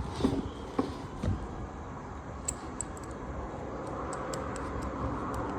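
Light clicks and taps of small metal parts being handled: the washer and tapered crank lock pin bolt being taken out of a motorcycle engine case. A faint steady hum rises slightly near the end.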